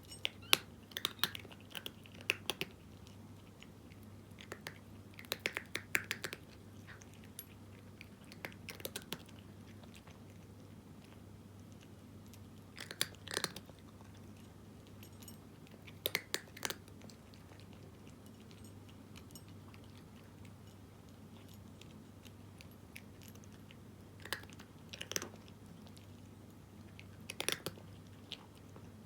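A cat crunching dry kibble, in short bursts of crisp crunches with pauses between mouthfuls.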